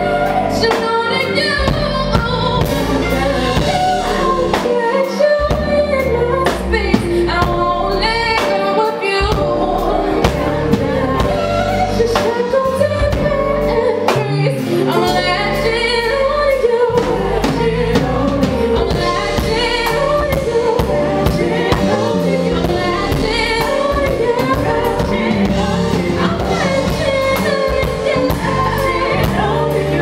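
Live band music: a woman singing lead over electric guitar, keyboards and drums, with a steady beat.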